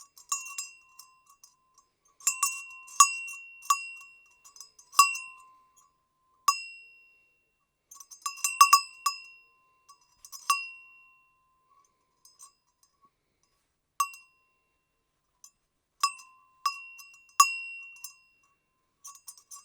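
Goat bell clanking irregularly, in single strikes and quick clusters. Each strike rings briefly at a high pitch, with a quiet stretch of about three seconds past the middle.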